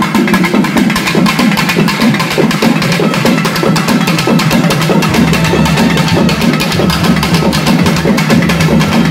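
Music driven by fast, continuous drumming, with dense rapid strokes and no break. A low bass tone joins in and out from about halfway through.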